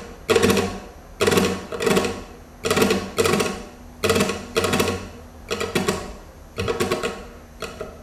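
Flamenco guitar chords strummed with the right hand, a rasgueado stroke repeated about a dozen times in an even rhythm, each chord sharp and ringing off briefly. The stroke is played one way and then another: a dry, short version first, then one that rings on a little longer.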